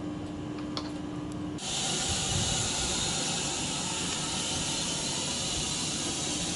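Steady hissing rush close beside a EuroCity Berlin–Warszawa-Express passenger coach, cutting in abruptly about one and a half seconds in. Before that, a faint steady hum over the background.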